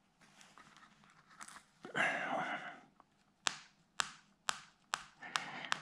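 A sewing needle pricking through photo paper, with a sharp little click at each puncture: about five clicks, roughly half a second apart, in the second half. A brief soft rustle comes about two seconds in.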